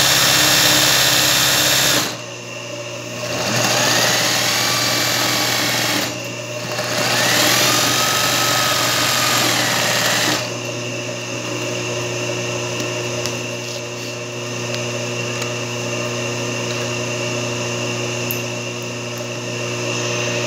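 Singer 20U industrial zigzag sewing machine running steadily as it stitches a satin-stitch scalloped edge on hooped fabric, easing off briefly about two seconds in and again around six seconds.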